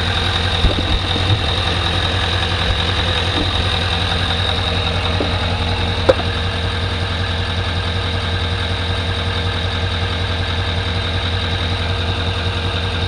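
LML Duramax 6.6-litre V8 turbodiesel idling steadily while the freshly refilled, still-cold Allison transmission fluid circulates through the new filter. There are a few light knocks near the start and one sharp click about six seconds in.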